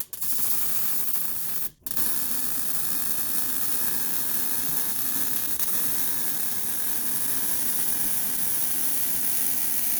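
Wire-feed welding arc on a steel exhaust pipe joint: a steady, even crackling hiss that stops briefly about two seconds in and then starts again and runs on.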